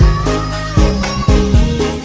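Upbeat background music with a steady beat, a thump about every half second under sustained melody notes.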